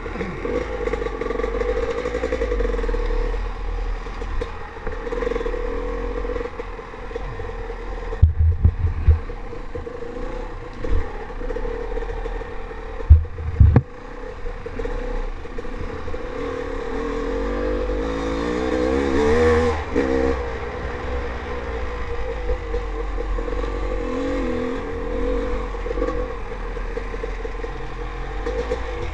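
Dirt bike engine running under way, its revs rising and falling with the throttle, most strongly about 18 to 20 seconds in. A few loud low thumps come about 8 and 13 seconds in.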